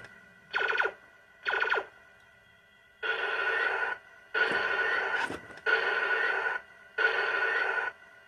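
Electronic sound effects from a small tinny speaker: two short sweeps falling in pitch, then four harsh noisy blasts of about a second each, evenly spaced, which follow a spoken "Enemy detected. Fire." like weapon fire.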